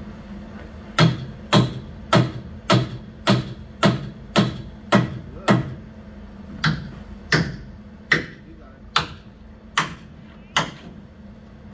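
A hammer striking a metal fitting on a fairground ride's steel platform frame, about fifteen sharp ringing blows. The first nine come at a steady pace of nearly two a second, and the rest come a little more slowly and unevenly.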